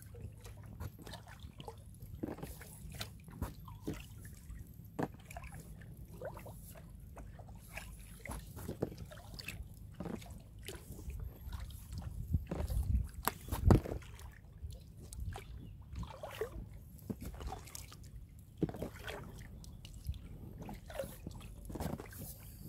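Water sloshing and dripping as an inflatable kayak is paddled along a creek, with scattered small splashes and knocks, the loudest about two-thirds of the way through, over a steady low rumble.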